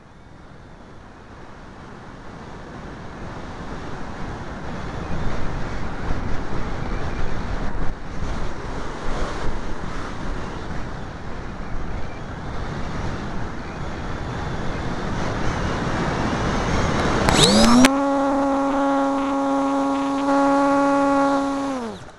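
Air rushing over a model aircraft's onboard microphone, growing steadily louder. About seventeen seconds in, the motor and propeller spin up with a quick rising whine, hold a steady tone for about four seconds, then wind down.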